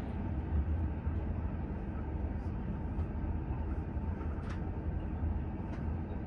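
Passenger train rumbling as it rolls slowly through a station, heard from inside the carriage: a steady low running noise with a few brief high-pitched squeaks, the clearest about four and a half seconds in.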